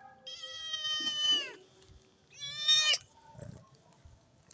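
Kitten meowing twice: a long, high meow that drops in pitch at its end, then a shorter meow about a second later that rises at its end.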